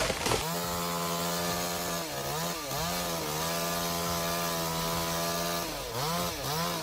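Two-stroke chainsaw running at high revs with a steady high pitch. The pitch dips briefly and comes back up twice, about two seconds in and again near the end.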